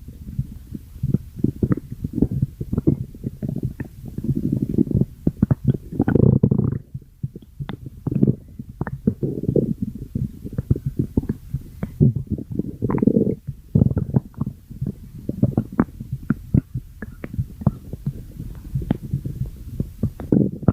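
A person's stomach growling and gurgling: a rapid, irregular string of short low pops and bubbling gurgles, with longer rumbles about five to six seconds in and again about thirteen seconds in.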